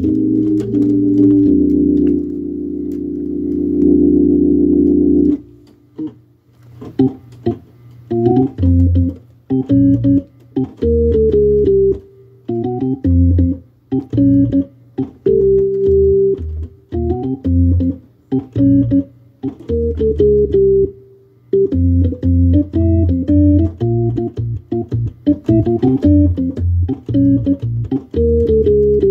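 Hammond organ playing a chord held for about five seconds, then short, detached chord stabs over a bass line, with brief gaps between them.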